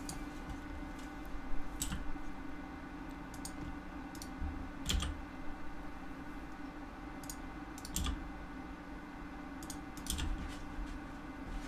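Computer keyboard keys and mouse buttons clicking at irregular intervals, about a dozen separate clicks, over a steady low hum.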